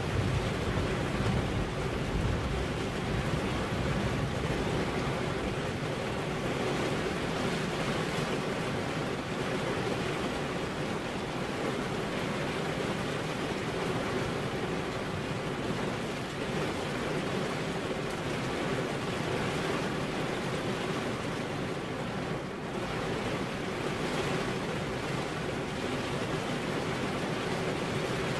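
Steady rain falling, a continuous even hiss without distinct drops or thunder.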